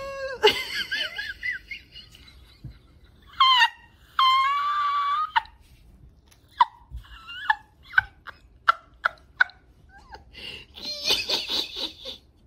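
Greyhound whining and crying, dramatically: high wavering cries, then one long, steady whine, then a run of about ten short, sharp yips and a burst of cries near the end.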